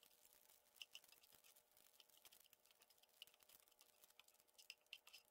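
Near silence, with scattered faint clicks and crackles as fried dried anchovies are stirred with a metal spatula in a nonstick frying pan.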